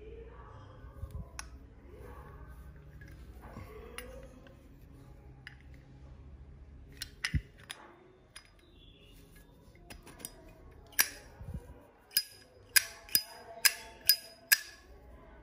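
Small metal clicks and clinks from Zippo lighters being handled: a few sharp clicks about halfway through, then a quick run of about six sharp clinks near the end.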